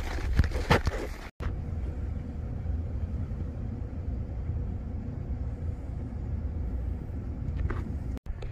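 Short outdoor sounds with a few voice-like noises, then a sudden cut to a steady low rumble with a faint steady hum inside a building.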